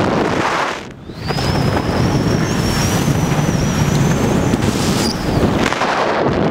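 Wind rushing over the camera microphone, a steady noise that drops out briefly about a second in. A faint, thin, high wavering whine runs through the middle.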